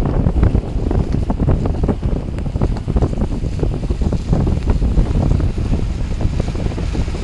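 Wind buffeting the microphone: a steady low rumble with many short crackles and pops.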